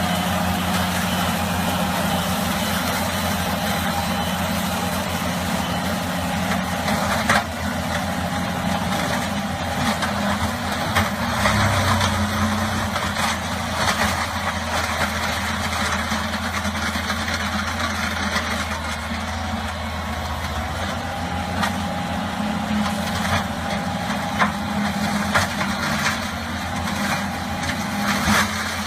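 Heavy machinery's diesel engine running steadily, with its pitch shifting a little partway through, and scattered knocks and clanks over it.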